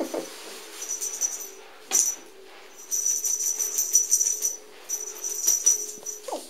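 Small jingle bell rattling in four bursts as a cat bats a bell toy about, the longest burst about a second and a half in the middle.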